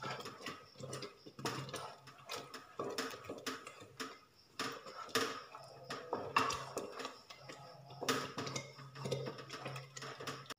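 Wooden spatula stirring thick carrot halwa in an open aluminium pressure cooker, scraping and knocking against the pot in irregular strokes. A low steady hum runs underneath.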